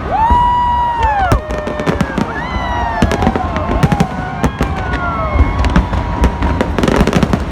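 Fireworks display: a rapid string of sharp bangs and pops, with several pitched whistles that rise, hold and fall in the first few seconds, and a dense crackle near the end.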